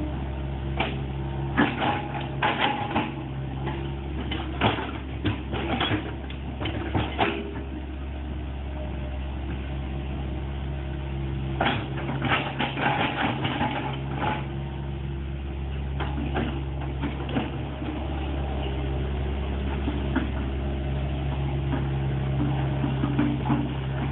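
Excavator's diesel engine running steadily, with clusters of sharp clanks and knocks from the machine at work: several in the first few seconds, another run around the middle and more near the end.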